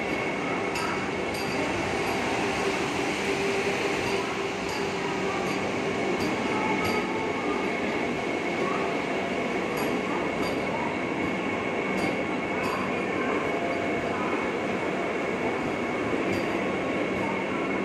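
Vande Bharat Express electric trainset at close range: a steady hum with a thin high whine and occasional faint clicks.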